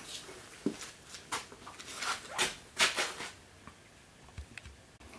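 Soft handling noises: a run of brief scuffs and rustles in the first few seconds, then a couple of faint low knocks near the end.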